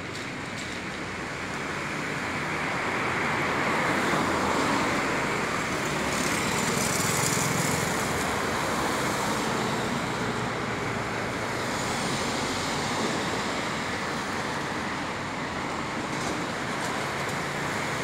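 Road traffic passing on a wet city street, a steady hiss of tyres and engine noise that swells to its loudest about four to eight seconds in.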